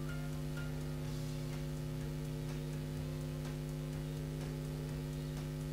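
Steady electrical mains hum in the recording's sound system, with faint, irregular ticking a few times a second.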